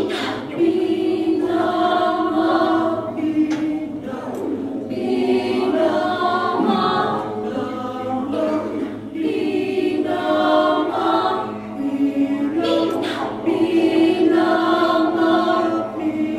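Mixed choir of men's and women's voices singing a cappella: held chords in phrases of a few seconds, with a sharp accent near the start and another about thirteen seconds in.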